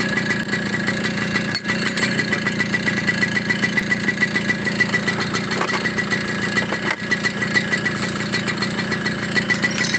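Small motorcycle or moped engine idling steadily, with a fast, even ticking beat.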